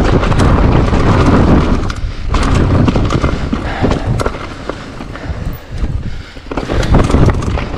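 Mountain e-bike clattering and rattling over a loose, rocky trail: a jumble of knocks and tyre noise over a heavy low rumble. It is loudest in the first two seconds, again briefly about two and a half seconds in, and near the end.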